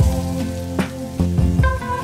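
Background music over the sizzle of a chickpea-flour omelette frying in hot oil as it is flipped over in the pan.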